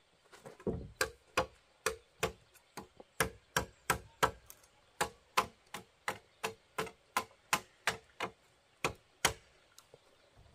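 Machete chopping into a fresh wooden pole: a steady run of sharp strikes, nearly three a second, which stops near the end.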